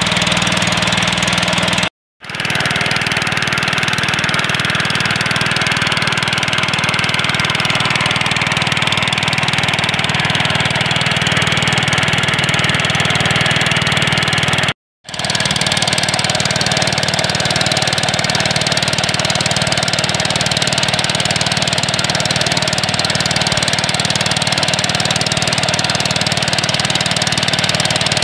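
Small single-cylinder petrol engine of a wooden outrigger fishing boat running steadily under way, broken twice by a momentary silence, about two seconds and fifteen seconds in.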